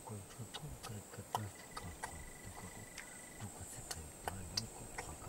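Irregular thuds and ticking scrapes of a man digging by hand into a burrow in sandy soil, over a steady high insect drone.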